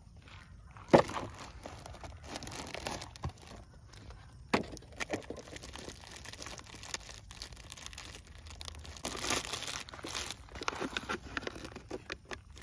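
A cardboard box being handled and opened, with a sharp knock about a second in and another near the middle. Then the clear plastic wrapping of a cylindrical firework cake crinkles and tears as it is handled and peeled.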